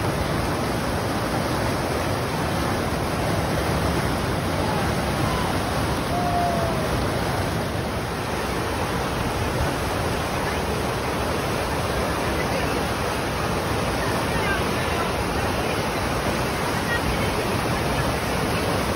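Whitewater rapids in a concrete artificial whitewater channel, rushing and churning in a steady, loud, unbroken rush of water.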